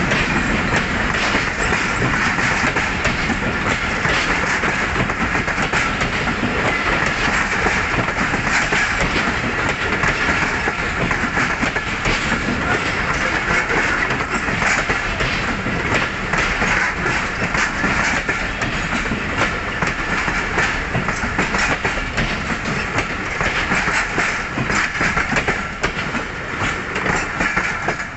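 Passenger train coaches rolling past, their wheels clacking steadily over rail joints amid continuous rumble and rail noise; the sound eases off a little near the end.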